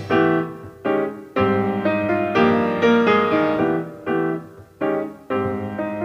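Background piano music: slow chords and notes struck about once a second, each one dying away before the next.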